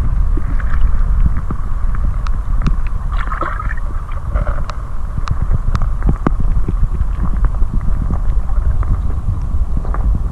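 Wind buffeting the microphone, a loud, rough low rumble throughout, with scattered sharp clicks and knocks.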